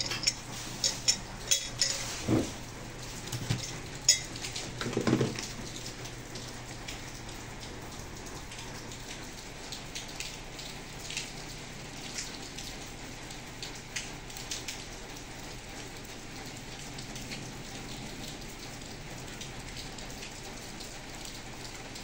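Handling noise: knocks and clacks of a lasted shoe and tools against a workbench in the first few seconds, then a steady hiss with scattered faint ticks.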